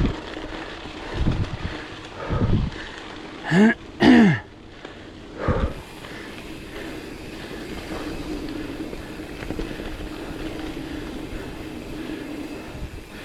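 Scott Spark mountain bike rolling along a dirt trail, with the rider breathing hard. About four seconds in, two loud strained grunts, the first rising in pitch and the second falling, are the loudest sounds.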